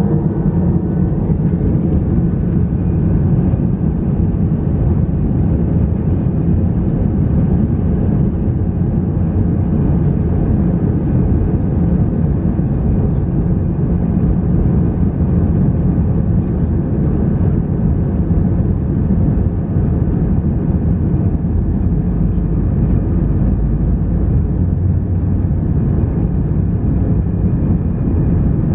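Steady, loud, deep rumble of an Airbus A320's engines and airflow, heard from inside the passenger cabin.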